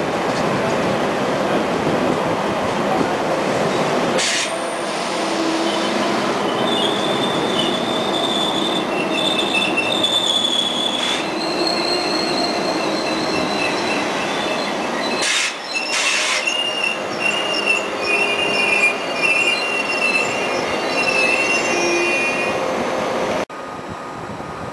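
Deutsche Bahn ICE high-speed train rolling slowly along the platform, its running gear rumbling steadily, with several high-pitched metallic squeals from its wheels on the rails from about six seconds in and a few sharp knocks. The sound cuts off suddenly near the end to quieter station noise.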